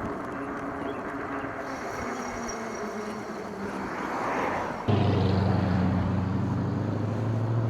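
Street traffic and rushing air during a ride. About five seconds in, a loud, steady, low vehicle engine hum starts abruptly and holds.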